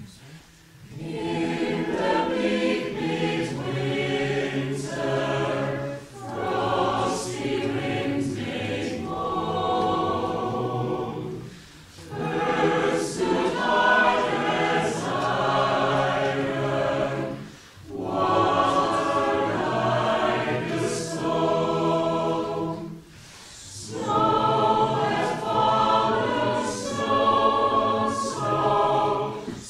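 Mixed choir of men's and women's voices singing, in phrases of about five to six seconds with short breaths between them.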